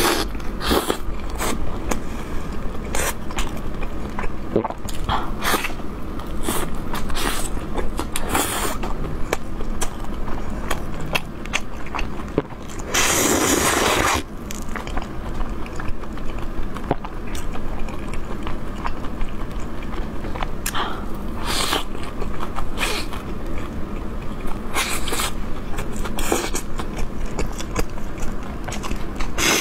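Close-up chewing and biting of a crisp shaobing flatbread stuffed with meat, with many short sharp crunches. About thirteen seconds in, a louder rush of noise lasts about a second.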